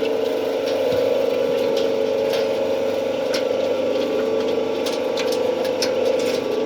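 Soap plodder running steadily with a constant motor and gearbox hum and scattered light clicks, while it works hard soap stock.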